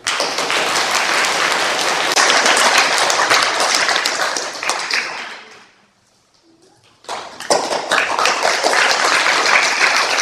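Audience applauding. The clapping dies away about five and a half seconds in, there is a brief hush, and a second round of applause starts about seven seconds in.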